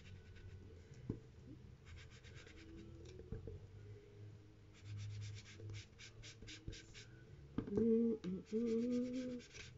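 Faint scratching and rubbing strokes of a tool on paper, in short runs. Near the end come two short held voice-like tones.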